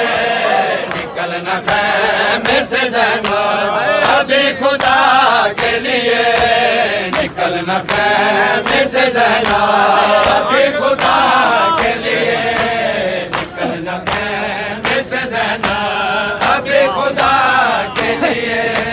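Men chanting an Urdu noha together in a loud group chant. Sharp slaps keep a steady beat through it, about one to two a second: the crowd's chest-beating (matam).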